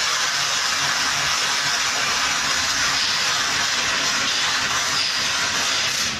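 Robotic arc welder laying a continuous weld on a stainless steel trailer frame: a steady, loud crackling hiss from the arc.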